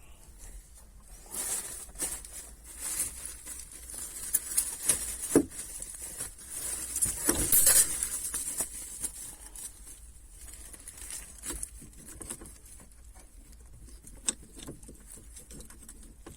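Handling noise: scattered small clicks, taps and rustling of parts and tools being handled, busiest in the first half, with the loudest knocks about halfway through, then only occasional faint clicks.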